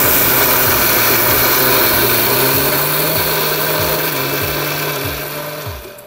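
Electric mixer grinder running with a small stainless steel jar, dry-grinding roasted pigeon peas, dried red chillies, garlic and tamarind into a coarse powder. The motor and grinding noise is loud and steady and dies away near the end.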